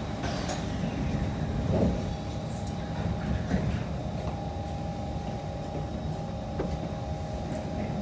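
Inside a Kawasaki C151 metro train car as it pulls away from the station: steady low rumble of the running gear with a faint steady hum.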